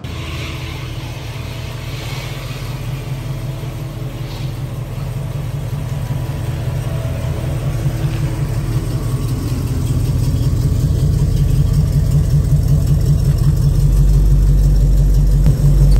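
1976 Chevrolet El Camino's V8 engine running with an even exhaust pulse. It grows steadily louder, and a deeper rumble comes in near the end.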